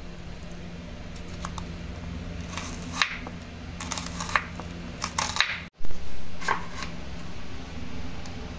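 Kitchen knife slicing a small onion and then a tomato on a wooden cutting board: scattered sharp knocks as the blade meets the board, over a steady low hum.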